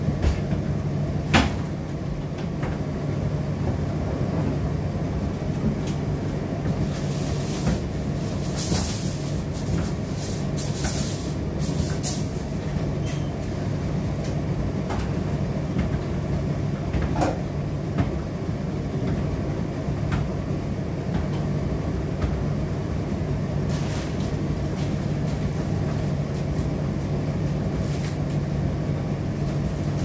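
Indesit IDC8T3 condenser tumble dryer running mid-cycle: a steady motor and fan hum as the drum turns, with occasional clicks and a few brief bursts of hiss.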